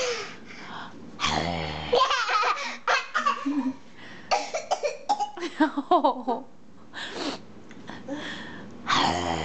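A toddler laughing hysterically in repeated fits, set off by an adult's low, rough growl. The growl comes about a second in and again near the end, with the laughter between.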